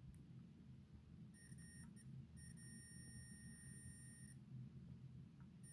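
Digital multimeter's buzzer beeping faintly while its probe is held on test points of a graphics card: a high, steady beep that stutters on and off about a second and a half in, then holds for about two seconds.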